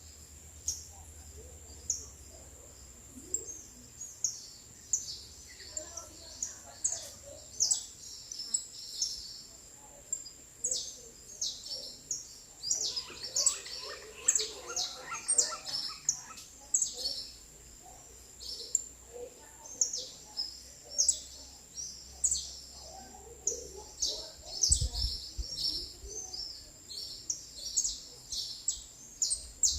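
Many small birds chirping and calling in quick, short notes, thick and overlapping, over a thin steady high-pitched tone. A couple of low thumps come near the end.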